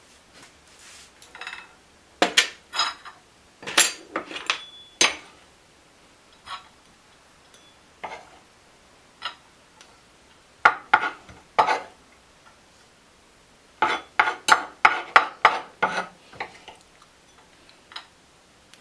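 Kitchen knife chopping raw steak and vegetables on a cutting board: three bursts of quick, sharp strokes with pauses between them.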